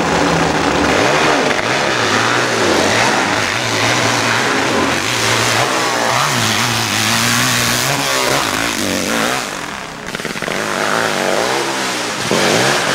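Hillclimb racing motorcycle engine revving hard as the bike climbs the hill, its pitch rising and falling over and over. It dips briefly about ten seconds in, then picks up again.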